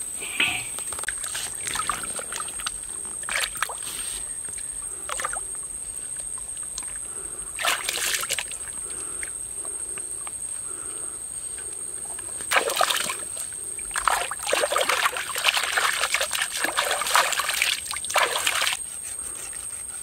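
Water splashing in shallow water as a large catfish is gripped and handled there, in several bursts, the loudest and longest about two thirds of the way in. A steady high insect trill runs underneath.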